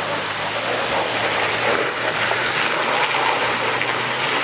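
Off-road 4x4's engine running steadily under load while its tyres churn through deep mud and water.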